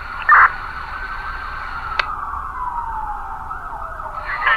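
Emergency vehicle siren in a slow wail, one tone rising and falling over several seconds. A short loud burst comes about a third of a second in, and a sharp click at about two seconds.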